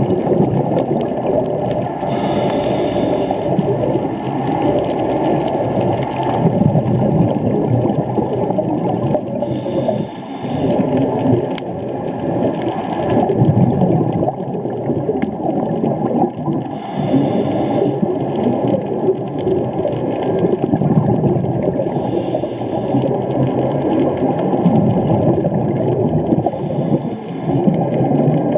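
Scuba dive recorded underwater through a camera housing: a steady muffled rumble of water noise, with a burst of exhaled bubbles from a diver's regulator about every four to five seconds.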